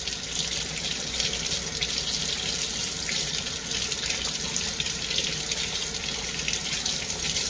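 Sink tap running steadily, its water stream pouring over a small miniature being rinsed of soap by hand.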